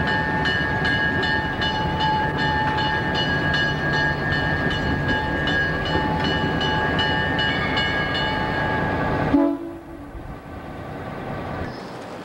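Diesel locomotive engine running steadily, a mechanical drone with a high steady whine and a fast, even ticking. It cuts off suddenly about nine seconds in, leaving a much quieter hum.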